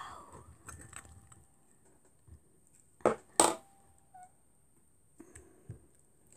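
Homemade clear slime being handled: faint soft rustling, then two short sharp pops about three seconds in, with a few small ticks after.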